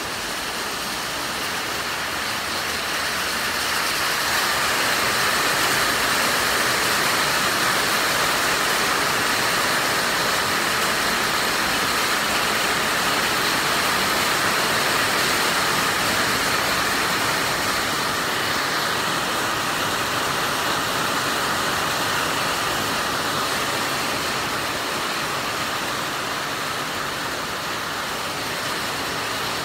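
Heavy rain pouring down steadily, a dense even hiss that swells a few seconds in and eases slightly near the end.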